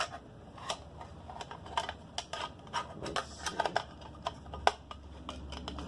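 Canteen gear being handled and fitted together: irregular light clicks and knocks of metal and plastic pieces.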